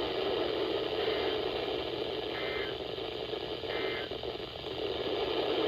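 Three short EAS end-of-message data bursts (the SAME "NNNN" tones), each about a third of a second and about a second apart, over the steady static hiss of a NOAA Weather Radio receiver. They mark the end of a severe thunderstorm warning broadcast.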